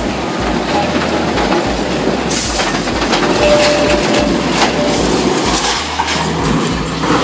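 Heavy machinery running with rattling, clanking metal, a thin squeal in the middle, and a burst of hiss starting about two seconds in.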